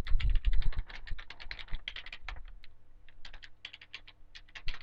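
Typing on a computer keyboard: a fast, uneven run of key clicks, loudest in the first second, thinning briefly and then picking up again.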